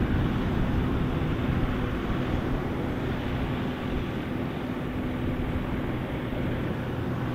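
Diesel tractor engines running steadily under load with a constant low hum as the tractors pull loaded forage trailers through deep mud.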